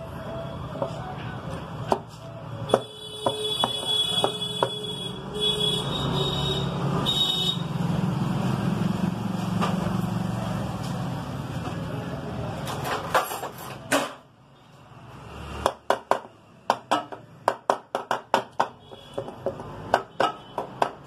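Honda Unicorn clutch cover being knocked home onto the engine case, a run of sharp knocks about two a second in the last several seconds. The cover is going on tight over a rusty dowel pin. Before that there is a steady low rumble with a few brief high tones, cut off about 14 seconds in.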